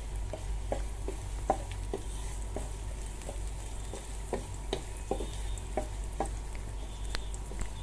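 Wooden spatula stirring chopped onion and garlic frying in oil in a frying pan: a light sizzle with short scrapes and taps of the spatula on the pan, about two a second.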